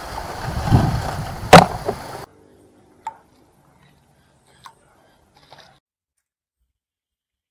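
A low whoosh, then a single sharp, loud knock about a second and a half in. The sound cuts off abruptly, leaving near silence with a few faint clicks.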